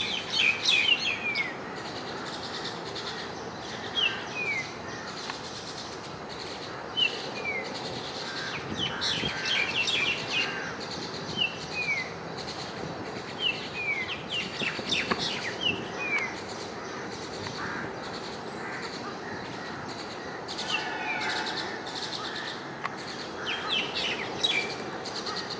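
Common mynas calling at a feeding of their young: short downward-sliding notes every second or two, with several bursts of rapid harsh chattering.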